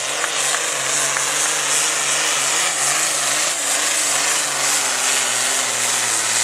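Allis-Chalmers D-21 tractor's diesel engine running at full load while pulling a weight-transfer sled. Its note is loud and steady, wavering slightly up and down in pitch, over a high hiss.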